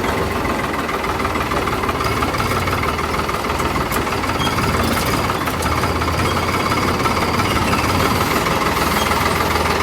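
Tractor diesel engine, fitted with an aftermarket turbo whistle on the exhaust, running steadily at idle with no revving.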